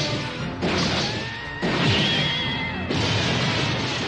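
Anime giant-robot battle sound effects: heavy crashing impacts on the robot's head armour, about one a second, with dramatic music underneath. A thin high tone sounds through the middle of it.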